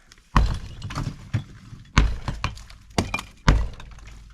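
Sledgehammer blows breaking up a cinder block wall: three heavy hits about a second and a half apart, with smaller knocks and the clatter of falling block pieces between them.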